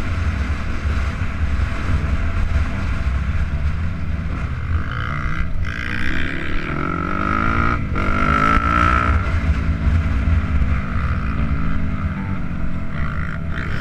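Dirt bike engine running under way, its pitch rising and falling several times as the rider works the throttle, over a steady low rumble of wind on the microphone. The sound breaks off twice very briefly.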